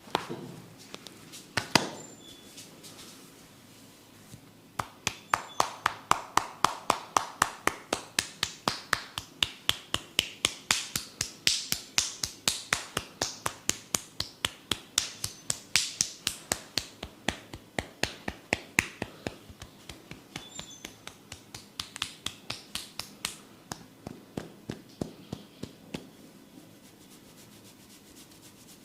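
Percussive head-massage tapping: a couple of separate knocks, then about five seconds in a long run of quick, even taps, several a second. The taps grow softer toward the end.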